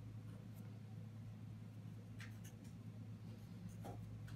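Felt-tip marker drawing on paper, a few faint scratchy strokes, over a steady low hum.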